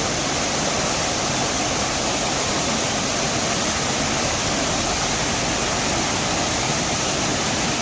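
Large waterfall pouring down, a steady, loud rush of falling water.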